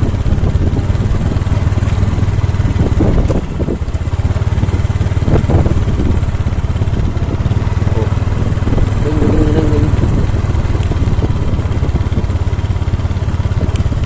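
Motorcycle engine running steadily at low speed while the bike rides along a narrow dirt footpath, heard from the rider's seat, with a few brief knocks from the rough track.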